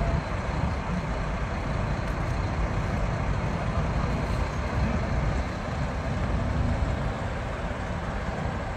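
Diesel engine of a heavy military cargo truck running as it drives slowly away, a steady low rumble.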